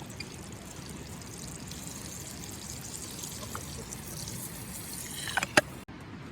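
Water running steadily, with a few clicks and one sharp click about five and a half seconds in, then an abrupt cut.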